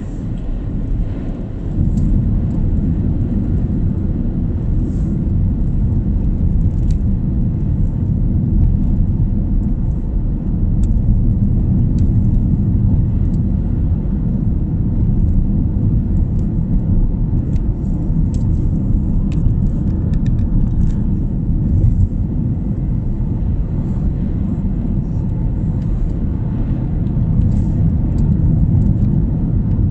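Steady low rumble of a car's road and engine noise heard from inside the cabin while driving, stepping up a little about two seconds in, with a few faint clicks.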